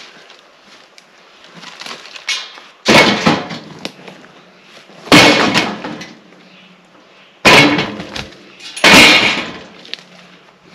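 Cut log rounds being dropped into a steel-mesh utility trailer: four heavy thuds with a metallic clatter, about two seconds apart.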